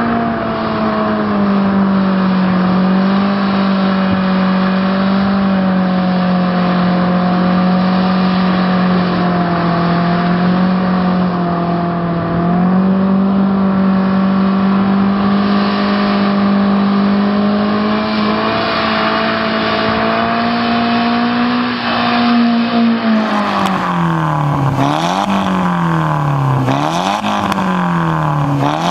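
Nissan S15 Silvia engine held at high, nearly steady revs through a burnout. About three-quarters of the way in, this gives way to a Nissan 200SX S14's turbocharged SR20DET four-cylinder through an XS-Power aftermarket exhaust, revved up and let fall about three times.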